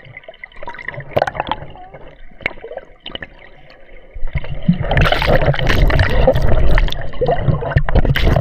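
Seawater gurgling and sloshing around a snorkeling camera, with scattered small splashes and clicks, then turning much louder and more churning about four seconds in.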